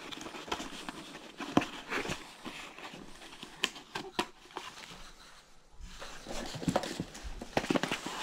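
Gloved hands handling small cardboard boxes: irregular knocks, taps and scrapes of cardboard with packaging rustle, and a short lull about five seconds in.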